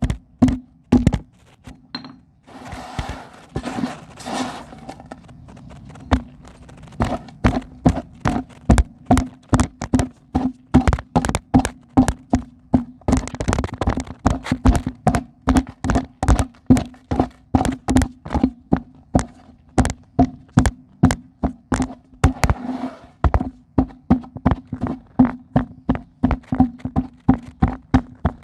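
Chunks of dried pure cement snapping and crumbling by hand: a steady run of sharp cracks, about two to three a second, with a few stretches of gritty crumbling in between.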